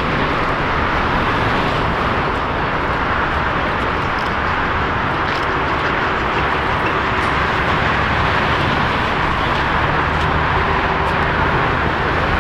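Boeing 777 freighter's GE90 turbofan engines during touchdown and rollout: a steady, loud jet roar with a low rumble underneath.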